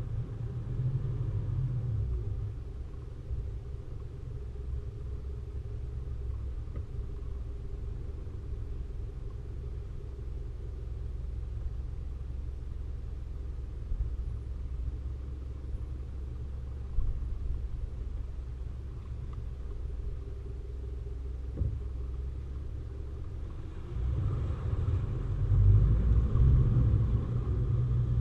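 Four-wheel-drive vehicle driving on a rough track, a steady low engine and drivetrain rumble that grows louder about four seconds before the end.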